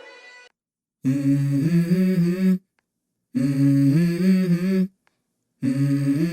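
Background song: the end of the previous music fades out about half a second in, then a voice hums three short 'mm-hmm' phrases with brief silences between them, the song's intro.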